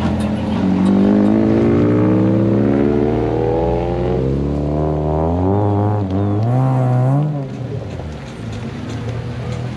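Car engines accelerating past in turn: one engine's note climbs steadily as it pulls away, then a second revs with a wavering, rising pitch and drops off sharply about seven seconds in, leaving a lower rumble.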